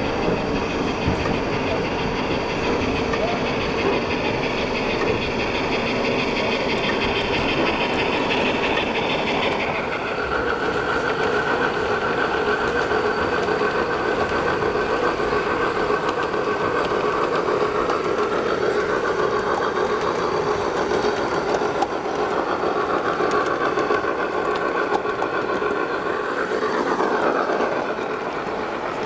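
Gauge 1 model steam train running along the track, with wheel clicks over the rail joints and a steady hum, against the chatter of a crowded hall. The sound changes abruptly about a third of the way in.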